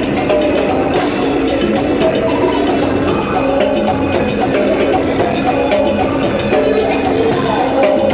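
Timbales solo: a fast, dense run of stick strokes on the metal-shelled timbales, played live and amplified.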